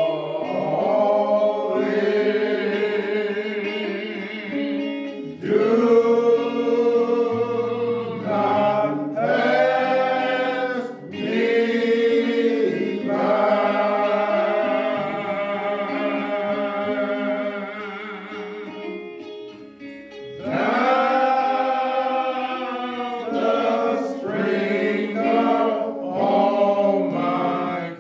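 Choir singing with long held notes and short breaks between phrases; the singing dips briefly about twenty seconds in.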